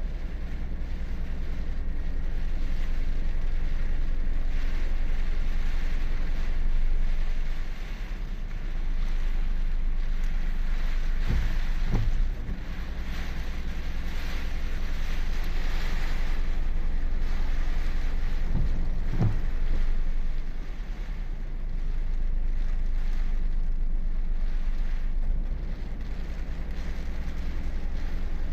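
Typhoon wind buffeting the microphone: a loud, steady low rumble and rushing noise, with a couple of brief knocks about twelve and nineteen seconds in.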